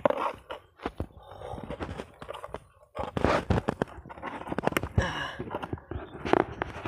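Irregular knocks, taps and scraping from live carp being handled in a red plastic tub while a fishing hook is worked out of one fish's mouth, the fish and line knocking against the plastic.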